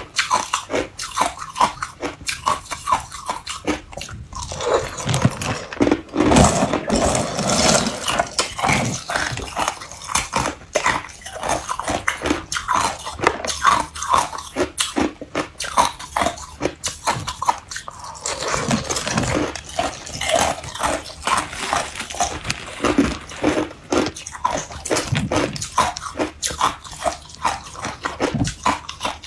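Hard clear ice crunched and chewed between the teeth: an irregular run of sharp cracks and crunches.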